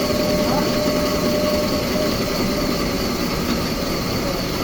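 Sawmill machinery running steadily, a loud even drone with a faint steady whine that fades about two seconds in.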